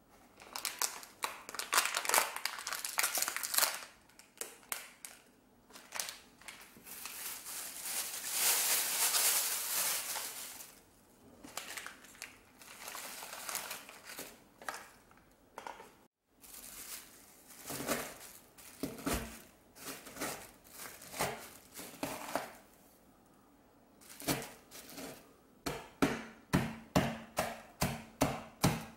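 Crinkling plastic wrapper as an Oreo cookie packet is handled and torn open and the cookies are tipped into a plastic bag. Near the end the bagged cookies are pounded with a white rolling pin, quick even knocks about three a second, crushing them into crumbs.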